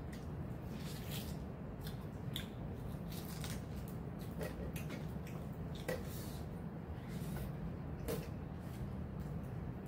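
Soft, irregular clicks and smacks of rice being eaten by hand from a metal plate, over a steady low hum.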